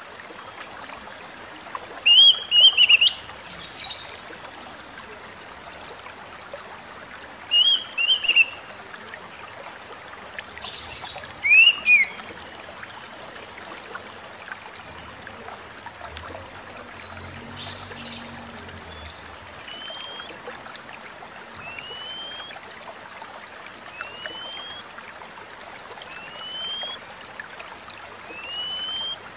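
Oriental magpie-robin (kacer) calling. In the first half come a few loud phrases of upswept whistles mixed with scratchy high notes; from the middle on, a single rising whistle repeats about every two seconds. A steady hiss runs underneath.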